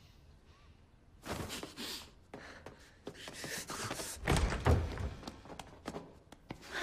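Scuffling and knocks as two people grapple and stumble into furniture, with heavy thumps about four and a half seconds in.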